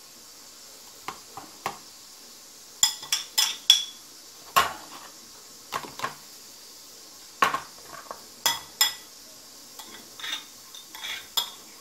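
Kitchen utensils clinking and scraping against a bowl and strainer as grated radish and honey are emptied into the strainer. The clinks come irregularly, each with a short ring.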